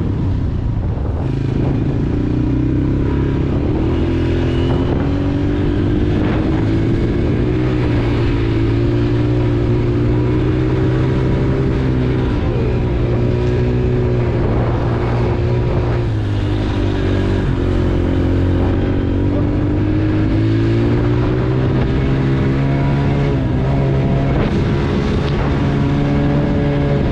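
Honda TRX90 ATV's small single-cylinder engine running under way, its pitch rising and falling as the throttle is worked.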